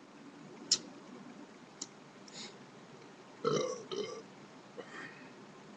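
A man burping: two short, fairly quiet burps about three and a half and four seconds in, with a couple of small mouth clicks before them.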